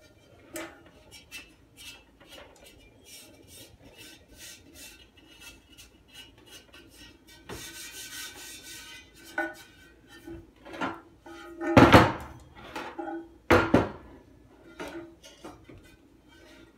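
Kohler toilet's porcelain tank being handled and shifted on a wooden table: scattered clinks and light knocks, a stretch of rubbing or scraping about halfway through, and two loud knocks a little over a second apart past the middle, the loudest sounds.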